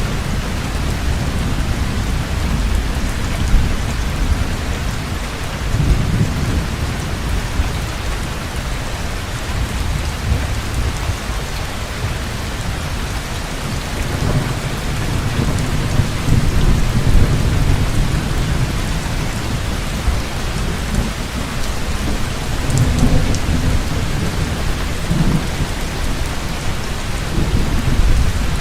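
Heavy rain pouring steadily with rolling thunder, the deep rumble swelling and fading several times, strongest in the middle and near the end.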